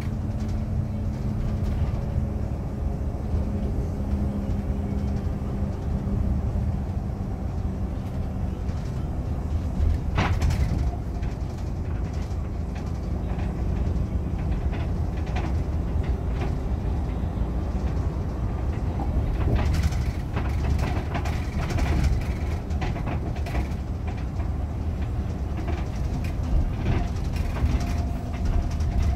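Inside a Setra S 416 GT coach at highway speed: steady rumble of its Mercedes-Benz OM457 inline-six diesel and the road, with a sharp knock about a third of the way in and a run of knocks and rattles past the middle, which fit the banging axle the owner says the coach still has.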